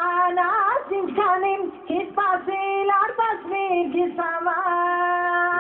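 A high-pitched voice singing an Armenian song, the melody moving between long held notes and quick bends in pitch.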